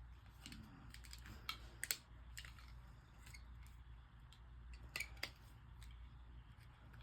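Faint, scattered small clicks and taps of a computer mouse's plastic parts being handled and pressed together during reassembly, over a low steady hum.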